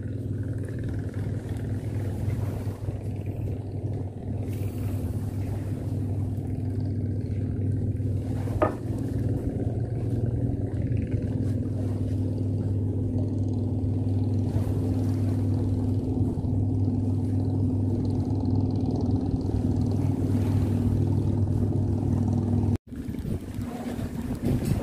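Low, steady engine drone at a constant speed, with no change in pitch, that cuts off suddenly near the end.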